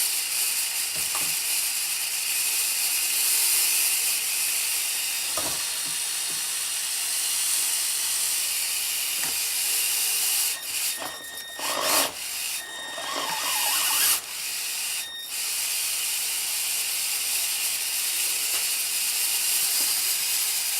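A steady hiss, broken off and restarted several times about halfway through.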